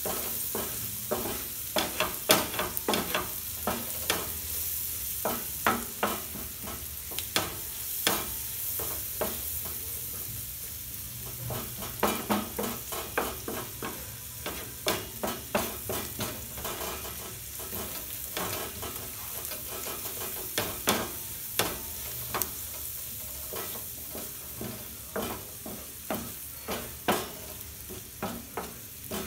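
Onions and tomatoes frying in butter on a flat tawa, with a steady high sizzle. A wooden spatula stirs them, knocking and scraping against the pan in irregular sharp clicks.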